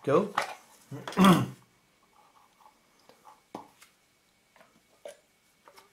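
Two short, loud vocal sounds from a man in the first second and a half, like throat clearing, the second the louder. Then faint scattered clicks and taps of small objects being handled on a work table.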